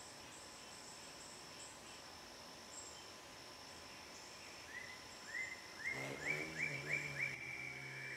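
Insects trilling steadily in high, faint tones, as on a summer evening in the woods. From about five seconds in, a run of short repeated chirps joins them, coming faster and louder toward the end, over a low steady hum.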